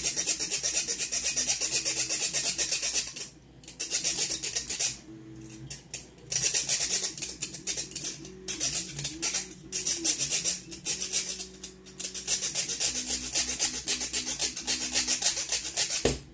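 Fine-toothed metal-cutting jigsaw blade in a small hand hacksaw rasping back and forth through a thin steel clip. The strokes are quick and even, and stop briefly several times.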